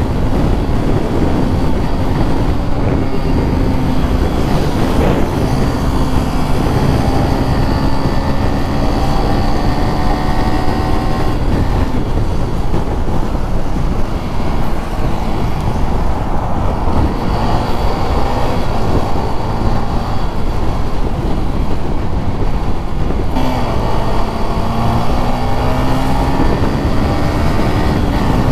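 Motorcycle engine running while riding, with heavy wind rumble on the microphone. The engine note sags slowly, shifts abruptly about two-thirds of the way through, then rises as the bike picks up speed near the end.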